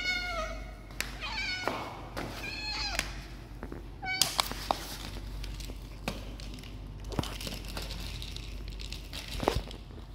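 Hungry domestic cat meowing, four or five calls in the first four seconds as it begs for food. The calls are followed by a few sharp knocks and rustling from a plastic bottle of dry cat food being handled.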